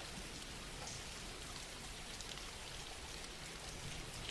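Soft, steady rain falling, with faint patter of individual drops.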